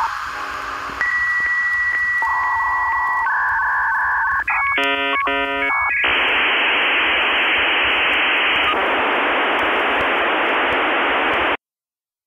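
Dial-up modem handshake: a series of steady beeping tones at changing pitches, then a short burst of warbling chord-like tones, then several seconds of loud even hiss that cuts off suddenly.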